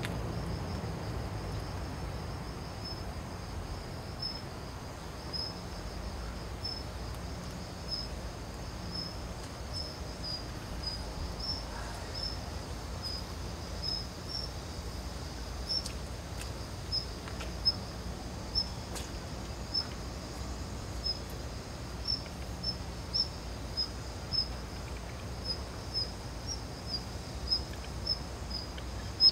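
An insect chirping repeatedly in short, high, evenly spaced chirps, about one or two a second, growing louder in the second half. A low steady rumble of outdoor ambience runs underneath.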